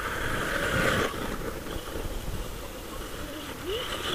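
HPI Apache C1 Flux 1/8 electric RC buggy with an Alphastar Flux 2350kv brushless motor, driving over frozen gravel. The motor whines and the tyres scrabble on the grit, loudest about a second in, with a brief rising whine near the end.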